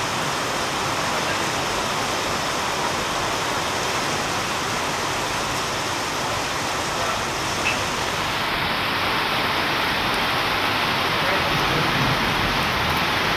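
Heavy rain pouring down, a steady hiss with no let-up.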